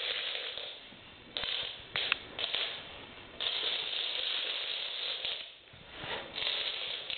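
A chain of toy dominoes toppling across a wooden floor: rapid, dense clattering in several runs that stop and start again, the longest about two seconds long. The chain stalls partway and is set going again by hand.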